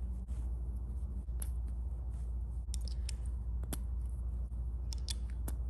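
Sharp little clicks as cut-off nickel shell casings are pushed one by one into the chambers of a six-gun oil cap's cylinder, a few single clicks and two short clusters, over a steady low hum.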